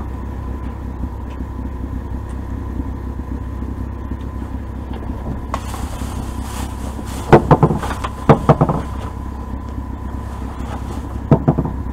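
A steady low rumble with a thin constant hum. There is a rustling patch about six seconds in. Short, loud pitched sounds break in a few times between seven and nine seconds and once more near the end.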